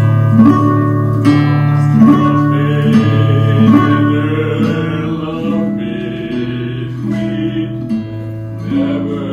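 Music led by an acoustic guitar with a bass line, with chords changing every second or so; it gets quieter about halfway through.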